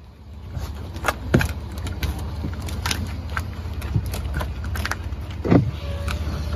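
A car engine idling as a low, steady rumble. Over it come scattered sharp clicks and scrapes from bison licking and nosing the side of a car.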